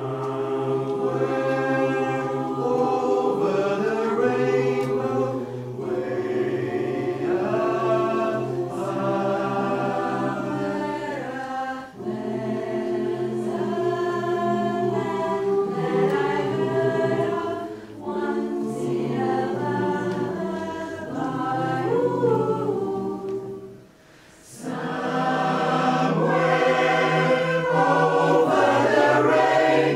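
Choir singing a harmonized song in long, held phrases, with brief breaks between phrases.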